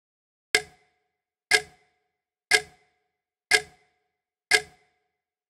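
Clock-tick sound effect: one sharp tick each second, each with a brief ring, and silence between the ticks. It counts off the writing time between spelling words.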